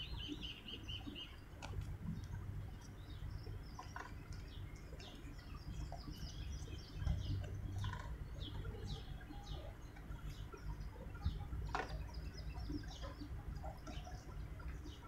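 Small birds chirping and twittering, with a quick high trill at the start, over a low steady rumble. A few faint clicks come from hands working close by.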